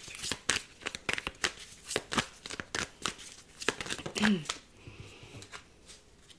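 A tarot deck being shuffled by hand: a quick run of card clicks and rustles that thins out to a few scattered flicks after about four and a half seconds.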